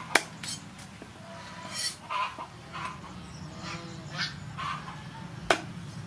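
A cleaver knocks sharply on a wooden chopping board while fish is prepared, once just after the start and once, loudest, near the end. In between, domestic waterfowl call about six times in short calls.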